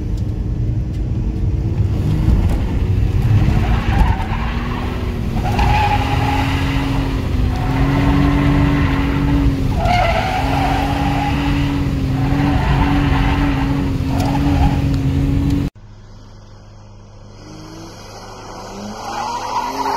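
A spool-equipped car's engine, heard from inside the cabin, revving up and down through the gears under hard acceleration, with short tyre squeals now and then. Near the end the sound cuts suddenly to a quieter recording in which car noise swells again.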